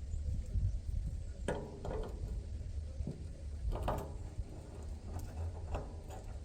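Metal clanks and knocks from handling diesel refuelling gear, four of them spread through a couple of seconds each, each ringing briefly, over a steady low rumble.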